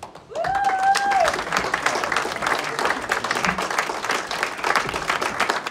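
Audience applauding. The clapping starts suddenly about a third of a second in and keeps going. Near the start, one held 'woo' cheer from a voice rides over the clapping and falls away at its end.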